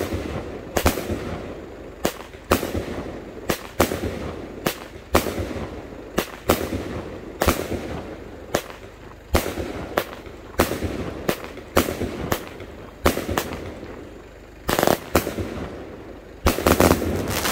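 A 49-shot medium-calibre Diamond Fireworks cake firing. Its shells go off in a steady series of sharp bangs, one or two a second, then in a dense rapid volley near the end.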